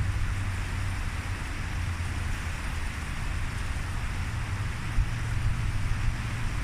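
Wind rumbling on the microphone over the steady rush of river water.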